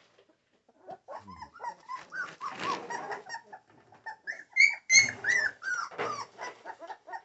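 American Pit Bull Terriers whining and yelping in short, high, rising-and-falling cries, starting about a second in and coming louder and faster from about five seconds in.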